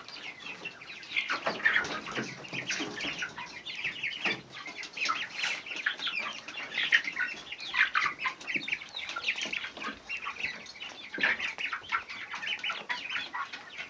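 A flock of poultry calling continuously, many short overlapping calls from several birds at once.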